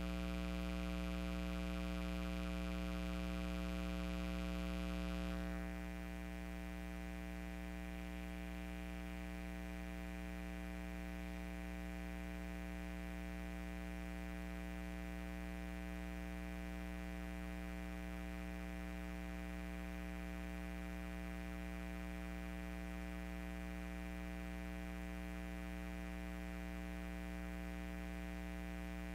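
A steady electronic drone of several held tones that never changes pitch or rhythm. About six seconds in its brighter upper part drops out, and it goes on a little quieter.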